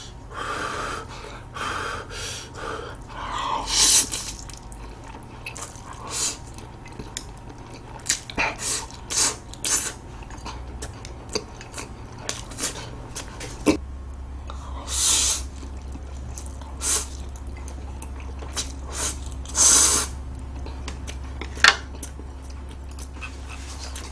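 Close-miked eating sounds: slurping thick, saucy jjajang buldak stir-fried noodles in several loud sucking bursts, with wet chewing and mouth clicks between them.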